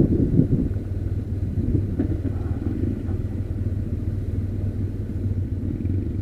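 Motorcycle engine running steadily while riding, with a low wind rumble on the microphone.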